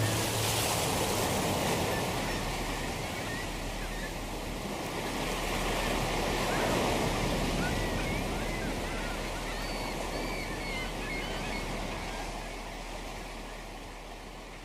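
Ocean waves and surf washing steadily, with gulls calling in short repeated cries through the middle of the stretch; the whole sound fades down near the end.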